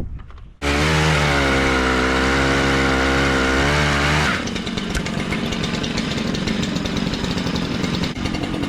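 Chainsaw running, starting suddenly and holding a steady pitch for about four seconds, then turning to a rougher, noisier sound for the rest.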